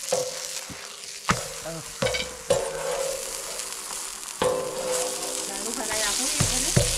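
Sugared flatbread sizzling in butter on a hot metal pan over a wood fire, with several sharp metal knocks, each leaving the pan ringing briefly.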